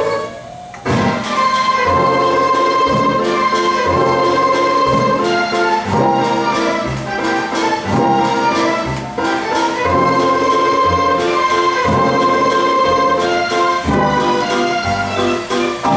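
Automated mechanical orchestra machine playing orchestral music with brass and percussion, in a steady regular pulse. After a brief dip in level, the music comes back in about a second in.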